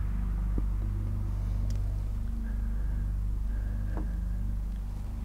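Steady low drone of motorway traffic heard from inside the house, with a few faint clicks about half a second, one and a half seconds and four seconds in.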